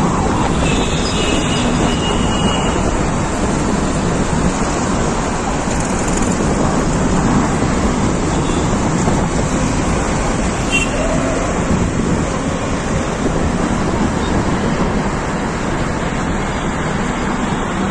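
Steady road traffic noise: vehicle engines and tyres on a busy road, with a few brief tones near the start and around the middle.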